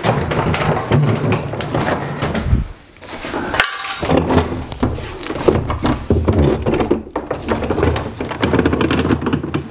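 Wooden dresser on furniture dollies being rolled across a hard floor and shoved back against the wall: a continuous rolling rumble with scattered knocks, pausing briefly about three seconds in.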